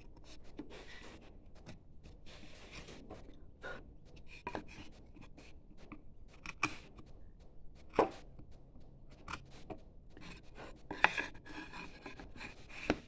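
Wood chisel pushed by hand, paring and scraping shavings from a carved wooden board. Irregular scrapes with scattered sharp clicks, the loudest about eight and eleven seconds in.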